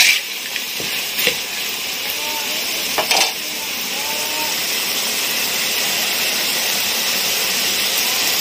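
Green chafer beetles frying in oil in a metal wok, a steady sizzle that grows slightly louder after a few seconds. Three sharp strokes of a spatula against the wok come in the first three seconds.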